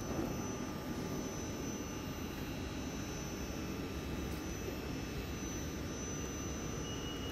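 Steady hum of a standing Class 458 Juniper electric multiple unit's onboard equipment, with thin high whines held at a constant pitch over a low even rumble.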